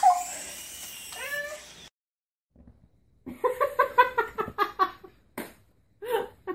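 Kitten mewing. A few short mews come in the first two seconds, then after a brief gap a rapid run of short, high mews, about six a second, and one more mew near the end.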